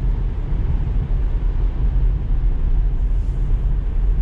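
Steady road and tyre noise inside the cabin of a Tesla Model 3, an electric car, at about 50 mph on a wet highway: a constant low rumble with a hiss over it.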